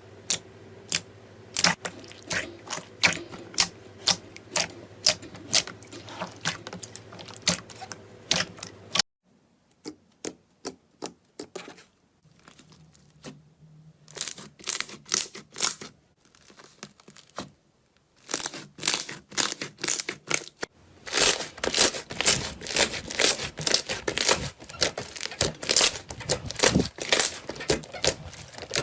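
Slime being pressed and poked, giving quick runs of crackles and pops. The texture changes abruptly several times as one short clip cuts to the next, growing denser and louder in the last third.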